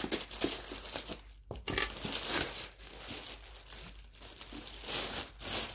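Mail packaging being opened by hand: wrapping crinkling and tearing in irregular rustles, with a few sharper snaps.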